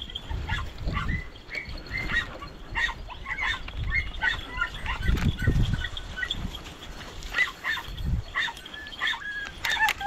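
Pack of podenco hounds yelping repeatedly in short, high-pitched cries while hunting rabbits along a reed bed, giving tongue as they work the scent. Intermittent low rumbles sound under the yelps.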